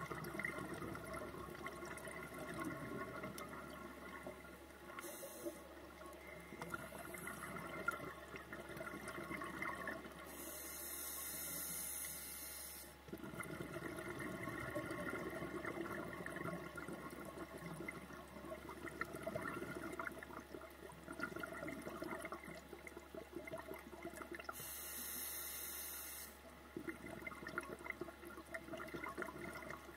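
Scuba breathing through a regulator underwater: long stretches of exhaled air bubbling and gurgling, broken three times by the hiss of an inhalation, briefly about five seconds in and for about two seconds each around ten and twenty-five seconds in.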